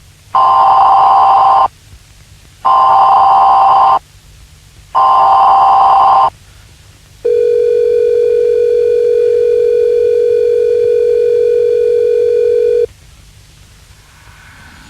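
Emergency Alert System-style alert: three harsh header bursts, each a little over a second long and about a second apart, then one long steady buzzing tone lasting about five and a half seconds.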